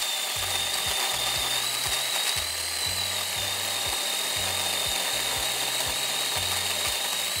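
Small cordless electric chainsaw running steadily under load, its motor giving a high, even whine as the chain cuts through a firewood log.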